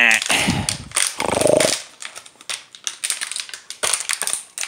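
A dog growling in play twice while tugging on a plastic water bottle, then the bottle crackling and crunching in many quick clicks as she chews it.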